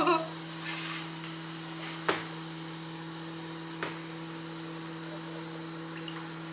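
Dishes clinking: a small spoon and containers knocking against a ceramic bowl as melted soap oils are scooped and poured between bowls. There is a sharp clink about two seconds in and a lighter one near four seconds, over a steady low hum.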